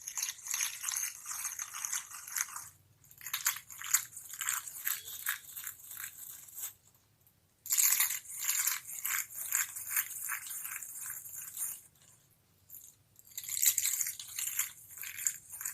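Crisp crunching and crackling, made of many quick clicks, in bouts of a few seconds, pausing briefly about seven seconds in and again about twelve seconds in.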